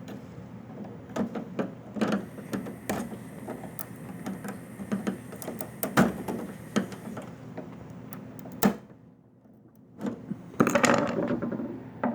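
Irregular small clicks and knocks from a microwave oven door switch and nearby parts being handled, over a faint steady hum, with a denser run of rattling near the end.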